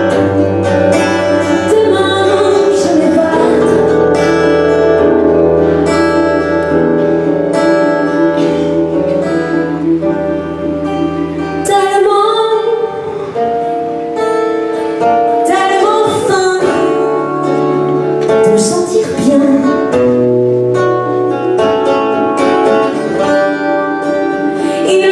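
Live acoustic song: two acoustic guitars strummed and picked over a keyboard bass line, with a voice singing the melody in places.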